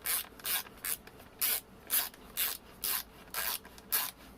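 Hand ratchet or ratcheting driver being worked back and forth while fastening the blower back together: a steady run of short rasping strokes, about two a second.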